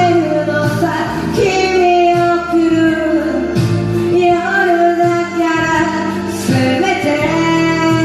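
A woman singing a Japanese pop ballad over a backing track, holding long melody notes one after another.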